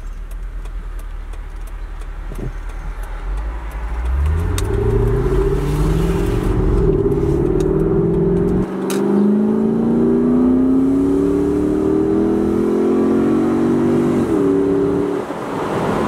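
Lexus SC430's 4.3-litre V8, fitted with an Injen short ram intake, accelerating hard with the roof down: low and steady at first, then about four seconds in the engine note climbs, drops briefly at each upshift and climbs again, about three times.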